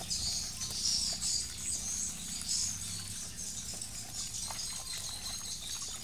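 Water from a garden hose running into a plastic basin and splashing as the basin is scrubbed clean with a coconut husk, with steady high bird chirping throughout.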